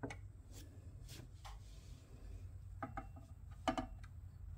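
A few small clicks as a digital kitchen scale is switched on and handled, then a steel axe head is set down on the scale's stainless-steel platform with a sharp metallic clunk and brief ring about three and a half seconds in, the loudest sound. A low steady hum underlies it.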